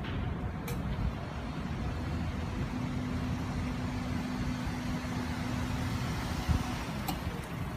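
Street traffic: a steady low rumble of passing vehicles, with a steady engine hum from about three seconds in until near the end.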